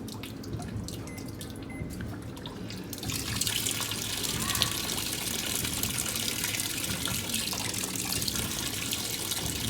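Washing machine filling with water: a low rumble with light splashing, then water rushing in much harder from about three seconds in.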